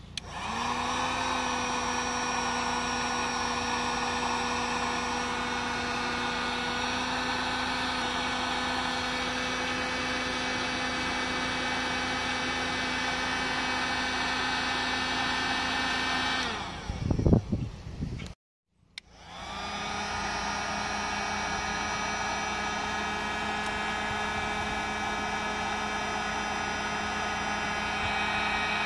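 Electric heat gun blowing hot air onto a 29cc gas RC engine to warm it for a heat-cycle break-in: a steady fan rush with a constant motor whine. After about sixteen seconds it stops amid a few loud knocks, then starts again a couple of seconds later and runs on steadily.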